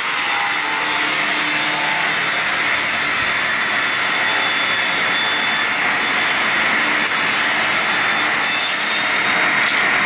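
Circular sawmill blade cutting through a log: a loud, steady sawing noise with a high whine from the spinning blade.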